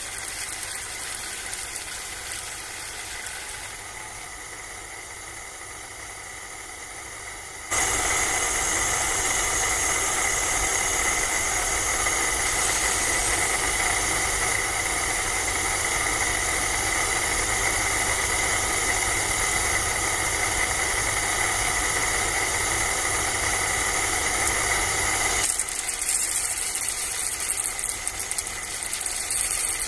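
Small electric motor whirring steadily as it drives a homemade miniature lentil-hulling machine through a string belt, with a high whine. The sound jumps suddenly louder about eight seconds in and drops back suddenly near the end.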